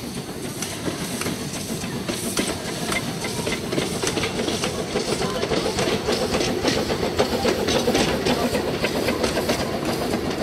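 Orenstein & Koppel 0-4-0 well-tank narrow-gauge steam locomotive working hard up a gradient, its exhaust beating rapidly and growing louder over the first eight seconds.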